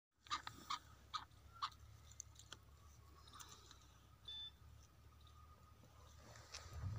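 Fingers scratching and scraping dry, crumbly soil: four sharp crunching scrapes in the first two seconds, then fainter scratches over a low steady rumble.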